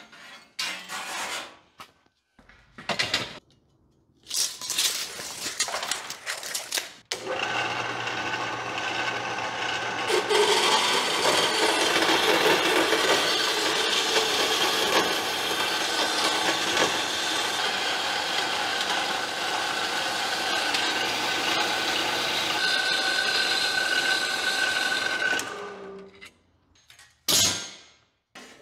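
Steel bar stock clanking as it is handled, then a metal-cutting power saw runs steadily for about eighteen seconds, cutting steel tubing to length for a door rail, with a steady tone joining in near the end of the cut. Brief clanks of steel follow once it stops.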